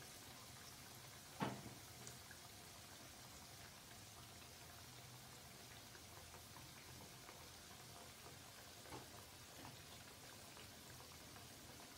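Banana pancakes deep-frying in hot oil: a faint steady sizzle with many small crackles and pops. A sharp click about a second and a half in, and a softer one near the end.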